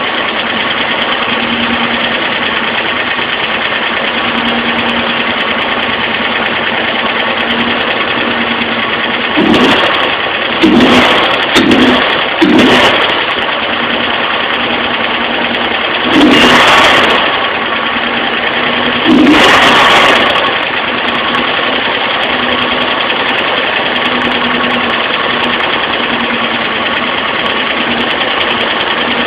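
Alfa Romeo Spider engine idling with a lifter tick, a sign that something is amiss in the valvetrain. It is revved in four quick blips about ten seconds in, then in two longer revs a few seconds apart, settling back to idle after each.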